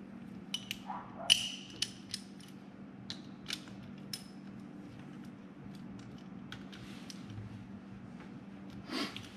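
Socket ratchet clicking in short, irregular strokes as the fill plug on the excavator's track drive motor is tightened, with a short squeaky creak about a second in. The clicks thin out after about four seconds, and only a few faint ticks follow.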